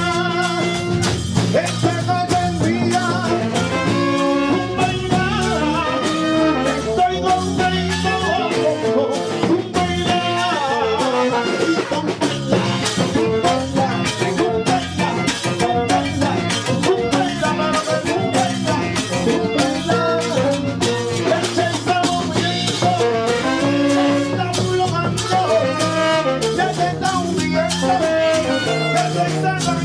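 Salsa band playing, with brass over steady percussion.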